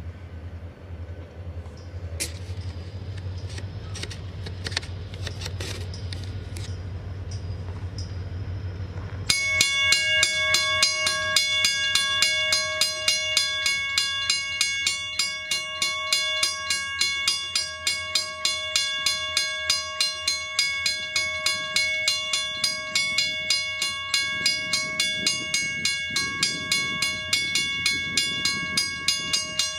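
A railroad grade-crossing warning bell switches on suddenly about a third of the way in and rings on in fast, even strokes. Before it comes on there is a low steady rumble with a few sharp clicks.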